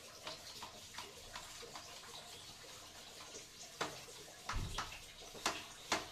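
Soapy sponge scrubbing a ceramic toilet seat and bowl rim: wet rubbing strokes. A few sharp knocks in the second half, one with a low thud, as the seat and hands bump against the porcelain.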